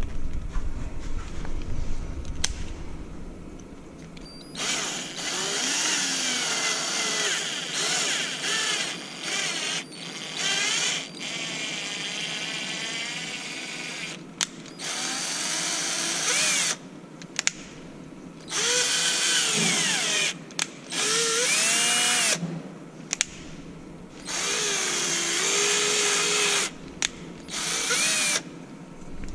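A handheld power drill running in about ten short bursts with gaps between them. Its motor whine rises and falls in pitch within each burst as the trigger is squeezed and eased.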